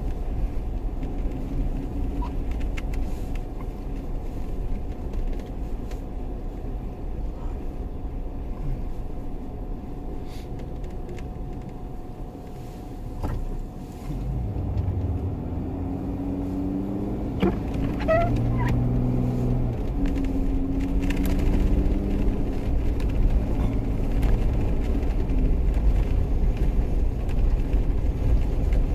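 Jeep engine running under a steady low rumble. It eases off about halfway through, then picks up again with a stronger, steadier engine note.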